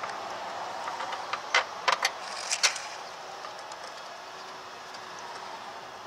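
A quick cluster of about five sharp plastic clicks and knocks in the first half, from hands working at the black plastic housing of the truck's engine computer (PCM), over a steady background hiss.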